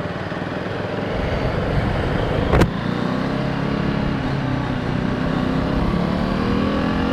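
KTM RC390 single-cylinder motorcycle engine running on the road under throttle, its note getting a little louder and steadier about a second in, with wind rushing over the helmet microphone. A single short, sharp click about two and a half seconds in.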